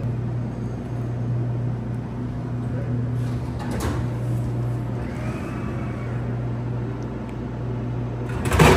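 Glass-front drink vending machine dispensing a can after a card payment: a steady low hum, a click about four seconds in, and a loud clunk near the end as the can drops into the delivery bin.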